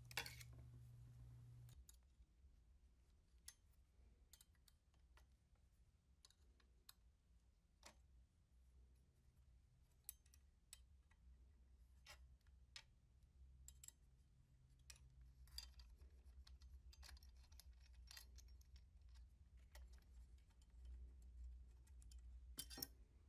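Near silence, broken by faint, scattered clicks and taps of a metal side cover plate and small parts being handled at an industrial sewing machine, over a faint low hum.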